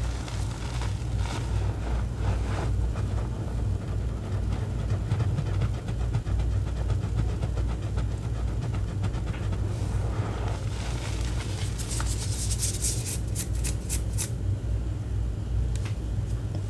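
Hands pressing, squeezing and scooping a heap of crushed gym-chalk and cornstarch powder, giving soft crunches. Near the end comes a quick run of crisp crackles. A steady low rumble runs underneath.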